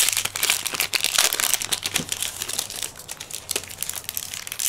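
Foil wrapper of a Yu-Gi-Oh booster pack crinkling as it is torn open, a dense crackle for the first three seconds, then lighter, sparser crinkles as the cards are pulled out and handled.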